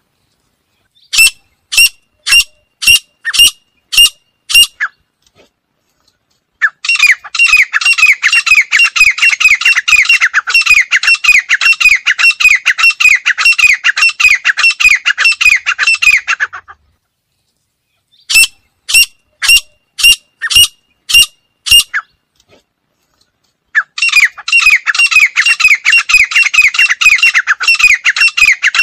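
Female grey francolin calling: about seven sharp, high single notes roughly half a second apart, then a fast unbroken run of calls lasting about ten seconds. After a pause the pattern comes again, six single notes and then another fast run near the end.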